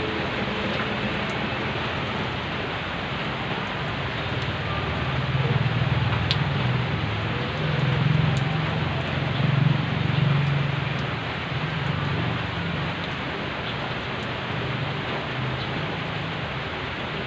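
Steady rain falling on a wet road and surrounding foliage, an even hiss throughout. A low rumble swells in the middle and fades again over several seconds.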